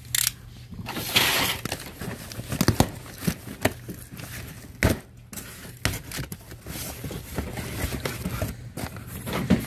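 Cardboard shipping box being torn open by hand, its flaps scraping and folding back, with rustling and scattered short knocks.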